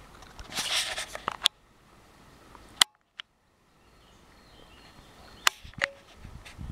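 Four sharp, single cracks of airsoft guns firing, about one and a half, three, five and a half and six seconds in, the one near three seconds the loudest, with a short rustle of leaves or brush before the first. The sound drops out for about a second just after the loudest crack.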